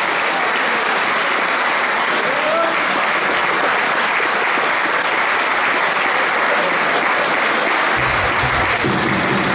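Hall crowd applauding steadily after a table tennis point. A low booming sound joins about eight seconds in.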